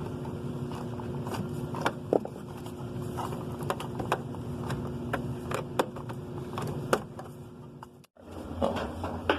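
Scattered clicks and scrapes of hands working a wiring harness and connector inside a Samsung top-load washer, over a steady background hum. The sound breaks off briefly about eight seconds in.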